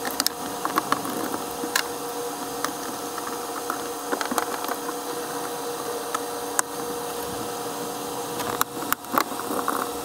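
Scattered sharp clicks and light knocks from a plastic StarBoard panel being held against the dash and a one-handed bar clamp being squeezed onto it, with a cluster of clicks near the end. Under them runs a steady hiss with a faint hum.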